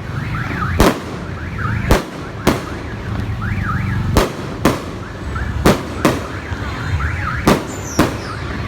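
Aerial fireworks going off, sharp bangs about once or twice a second, roughly nine in all. Under them runs a wavering, siren-like tone that sweeps up and down, like an alarm.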